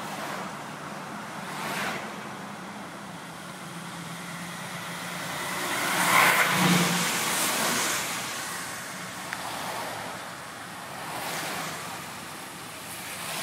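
Car driving slowly, heard from inside: steady road and tyre noise that swells several times, loudest about six seconds in.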